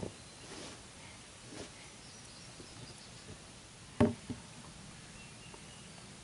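A single sharp knock about four seconds in, with a smaller knock just after it and a few faint taps and clicks before it, over a quiet background.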